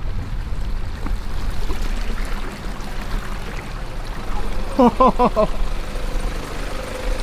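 Four-wheel-drive engine running low under water running and trickling. About five seconds in comes a short, loud burst of four quick pitched notes.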